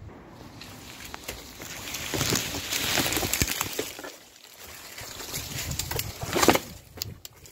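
Leafy branches and dry undergrowth rustling and crackling as someone pushes through them on foot. It swells about two seconds in, and there is a sharp, loud rustle near the end.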